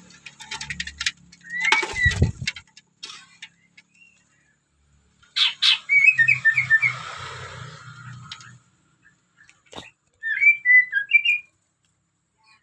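Young white-rumped shama calling in short bursts of chirps while being fed crickets, with a few sharp knocks and clicks between the calls.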